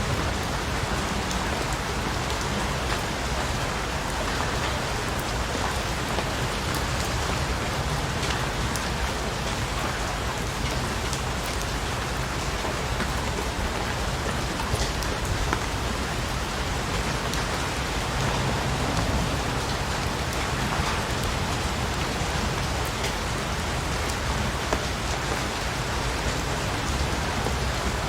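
Steady rain falling on a surface: a continuous even hiss with scattered individual drop ticks.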